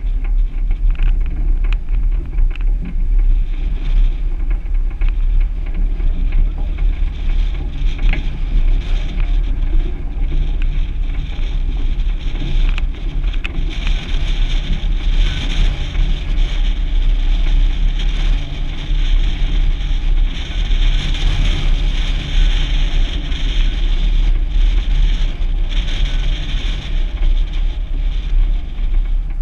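Suzuki Grand Vitara driving along a grass track: a steady rumble of engine and tyres, with wind buffeting the microphone.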